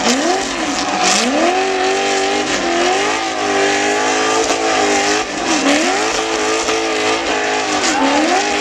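Engine of the Sledgehammer Ultra4 rock-racing buggy revving in repeated rising and falling surges as it climbs a steep boulder face.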